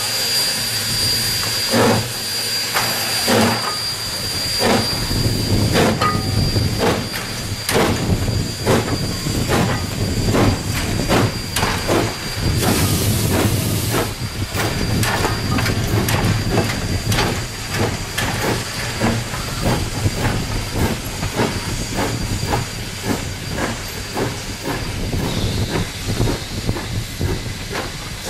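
Steam locomotive moving slowly at close range, with a steady hiss of steam and repeated exhaust chuffs and knocks about once a second. About halfway through there is a brief louder rush of steam.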